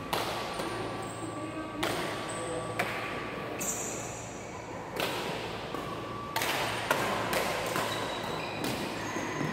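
Badminton rackets striking shuttlecocks on several courts at once: irregular sharp smacks, echoing in a large hall.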